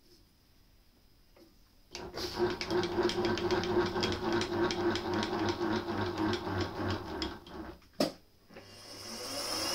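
Milling machine running a motor that hums with a rapid, even ticking for about six seconds while the drill chuck comes down toward the steel work. A sharp click follows, then the spindle spins up with a rising whine.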